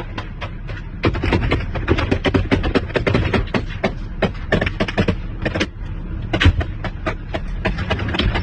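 Military vehicle rumbling with dense, irregular clattering knocks, a few a second, growing louder about a second in.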